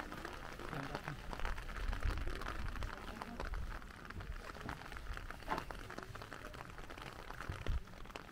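Light rain falling: a steady hiss dotted with many small drop ticks, under uneven low rumbles.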